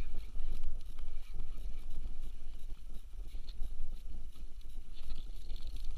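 Wind buffeting the microphone over water noise aboard a small anchored boat: an uneven low rumble with faint scattered ticks.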